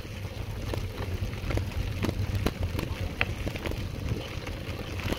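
Bicycle riding noise: a steady low rumble of wind on the microphone and tyres, with scattered irregular clicks and rattles.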